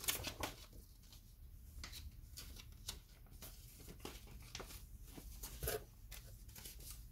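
Faint, irregular rustling and crinkling of paper sheets being handled, with a slightly louder crinkle about two thirds of the way through.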